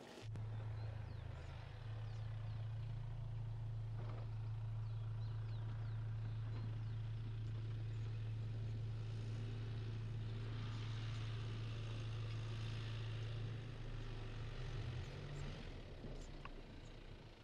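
Mercedes-Benz X-Class pickup's 2.3-litre four-cylinder turbo diesel running at a steady pitch off-road, a low drone heard inside the cabin, fading away near the end.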